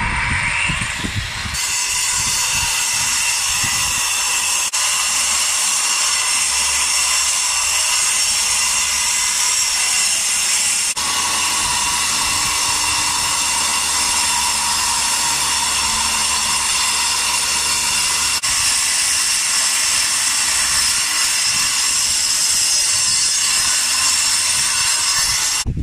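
Electric angle grinder cutting into a masonry step: it spins up during the first second or so, then holds a steady high whine under load, and stops at the very end.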